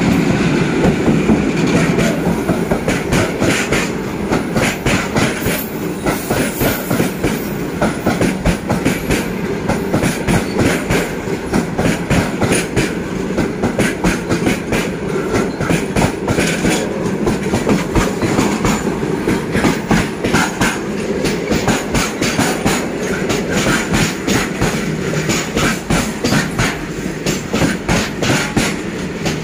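Long freight train of BCN covered wagons rolling past close by, its steel wheels clacking rapidly and continuously over the rail joints. The rear of a WAG-7 electric locomotive is passing at the very start.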